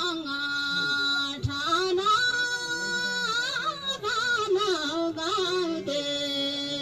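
A voice singing a Nepali Thadi Bhaka folk song in long drawn-out notes, most held for a second or more, with wavering turns between them.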